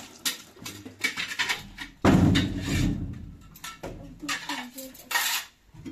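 Metal-framed door banging: one loud thud about two seconds in, with a low rumble fading over about a second. Children's voices and light clinks come before and after it.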